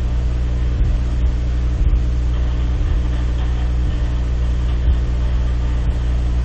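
A steady low hum with a stack of evenly spaced overtones, unchanging throughout.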